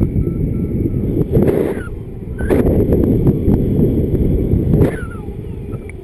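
Wind rushing over the microphone of a paraglider pilot's camera in flight: a loud, low buffeting in gusts that eases about five seconds in.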